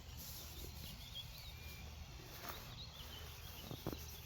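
Birds chirping faintly in short, wavering calls, with one longer steady whistle about a second and a half in. A low steady rumble sits underneath, and a few soft knocks come near the end.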